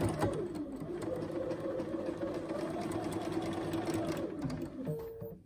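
Electric sewing machine stitching a seam through pinned quilt pieces: the motor speeds up, runs steadily for about four seconds, then slows and stops, with a short beep near the end.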